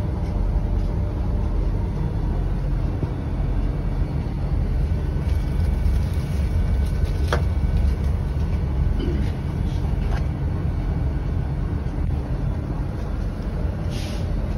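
GE Dash 9-44CW locomotive's 16-cylinder diesel engine running steadily, a deep rumble heard from inside the cab. A couple of brief clicks sound about seven seconds in and near the end.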